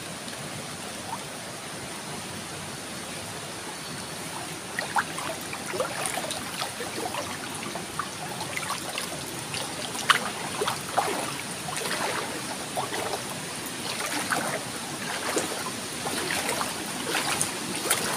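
Small stream running: a steady wash of flowing water, joined from about five seconds in by frequent short splashes and gurgles.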